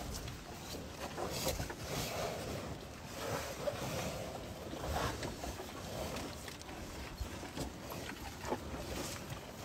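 Cattle eating corn from a feed trough: irregular crunching and clicking as they chew and nose through the feed.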